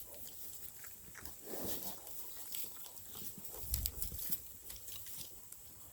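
Farm animals sounding and moving close by, with scattered clicks and a single low thump a little under four seconds in.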